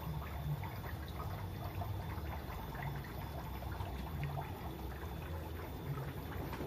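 Water trickling and splashing steadily from overhead inlet pipes into a row of glass guppy-breeding tanks, with many small drips and splashes over a low rumble.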